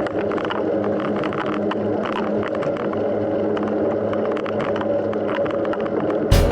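Mountain bike in motion: steady tyre and wind noise with a low hum and many small rattling clicks. Music comes in suddenly near the end.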